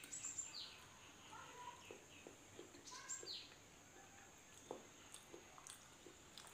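Faint bird calls: a high note with a short falling sweep, heard twice about three seconds apart, over soft scattered clicks from eating.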